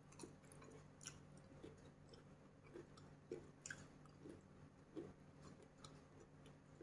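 Faint chewing close to a clip-on microphone: soft, wet mouth smacks and small clicks at irregular intervals as a person eats seafood with dipping sauce.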